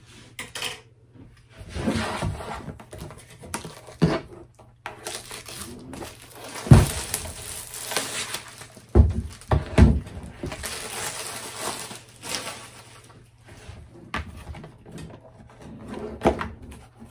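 A long cardboard kit box being handled and opened on a table: its cardboard and plastic wrapping rustle and scrape, and there are several dull thumps as it is knocked and set down.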